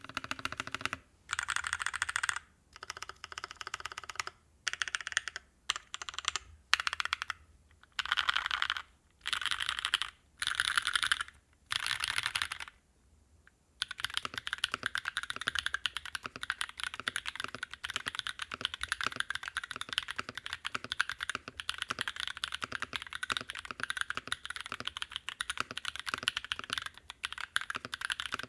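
Typing on a mechanical keyboard with Naevy v2 long-pole tactile switches: short bursts of rapid keystrokes with brief pauses, a silent break of about a second, then a long run of steady continuous typing. The first part is the board in top mount and the later run is in its stock 70A o-ring mount.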